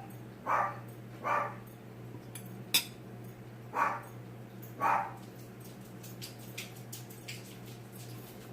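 A dog barking: two short barks, then two more a few seconds later. A single sharp click falls between them.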